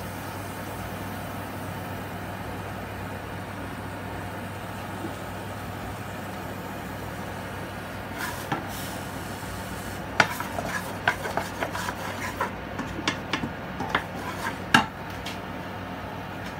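Wooden spatula scraping and knocking against a nonstick wok in a run of short, sharp strokes through the second half, over a steady low hum.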